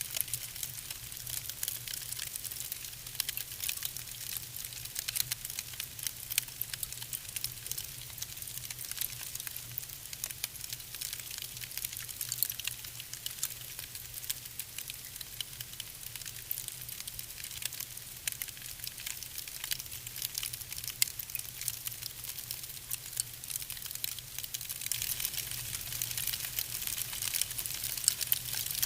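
Wood fire burning in a fireplace, crackling with many small sharp pops over a soft hiss, busier near the end. A low steady hum runs underneath.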